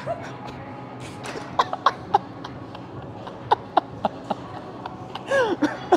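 A man grunting and breathing out sharply with effort through the reps of a chest-press set, in short strained bursts, one drawn out and falling in pitch near the end. Short knocks sound among them.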